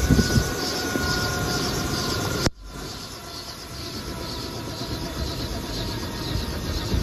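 Helicopter running on the ground after landing, its turbine and turning rotor making a steady, evenly pulsing whoosh, with rain falling. About two and a half seconds in, the sound cuts off abruptly, then comes back a little quieter.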